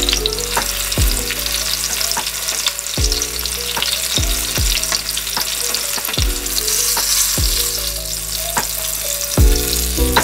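Garlic and spring onion sizzling as they fry in oil, stirred now and then with a silicone spatula: garlic oil being infused. Background music with a deep drum beat plays under it.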